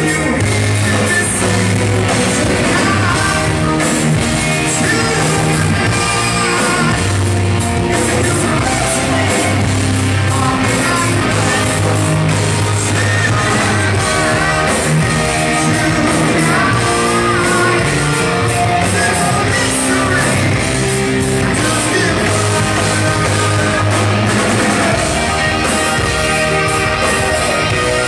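Live rock band playing loud: electric guitar, bass and drums under a lead singer, with the echo of a large hall.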